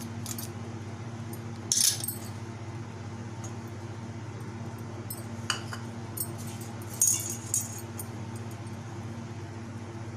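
Bangles jingling and clinking against a stainless-steel bowl as a hand mashes banana and mixes in flour: short, bright clinks about two seconds in, around five and a half seconds, and a cluster around seven seconds. A steady low hum runs underneath.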